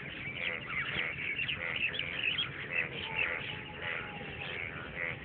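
Many birds chirping and calling at once, a dense, continuous chorus of short overlapping chirps.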